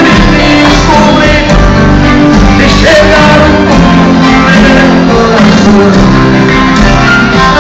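Loud live sertanejo band music: acoustic guitars and band playing with a male lead singer, recorded on a phone in the crowd.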